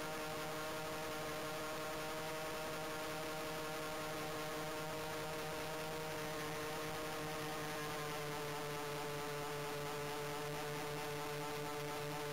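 Steady buzzing drone of a radio-controlled model Heinkel He 219's motors and propellers in flight, picked up by the small camera mounted on the airframe, holding an even pitch.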